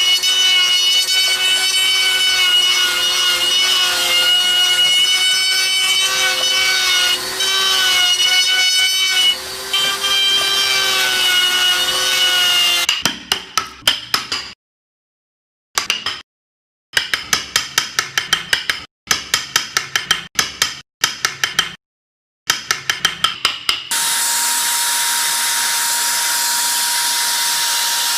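Woodworking tools working wood. First a power carving tool runs with a steady, slightly wavering whine. About thirteen seconds in come short runs of quick rubbing strokes on wood, about five a second, broken off abruptly several times. Near the end a steady hissing power tool starts.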